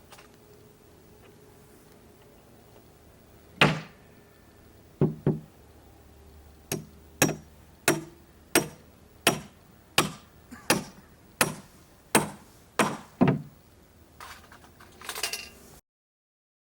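Hammering on timber: a few separate blows, then a steady run of about a dozen strikes, roughly three every two seconds, ending in some brief lighter clatter.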